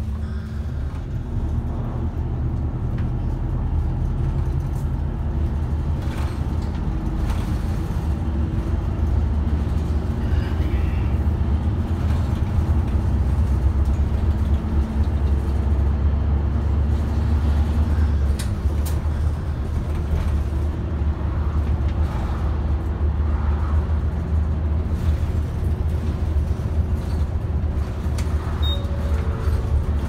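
Route bus cabin heard from the front while under way: the diesel engine runs with a steady low drone over road noise, with a few light clicks and rattles. The sound grows a little louder about a third of the way in.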